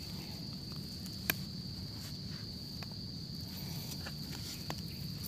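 Insects keep up a steady high-pitched buzz, over faint scattered scratches and ticks of a stick digging in dry leaves and soil, with one sharp click a little over a second in.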